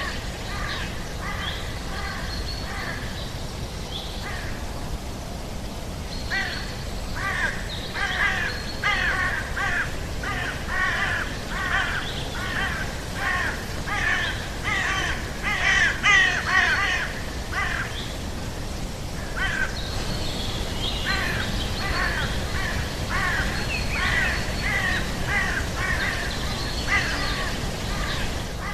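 Recorded rainforest soundscape: bird calls repeated in quick runs of about two a second, busiest through the middle, over a steady background hum.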